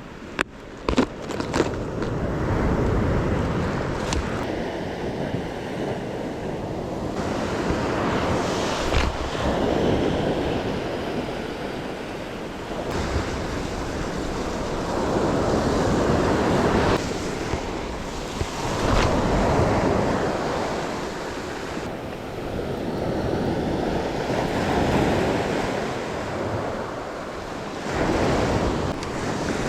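Surf breaking and washing up the beach, swelling and fading every few seconds, with wind buffeting the microphone. A few sharp clicks in the first second.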